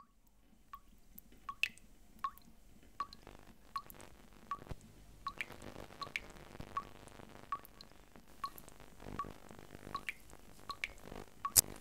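Water dripping steadily into a basin near its metal plughole, one short plink about every three-quarters of a second, with a louder splash right at the end.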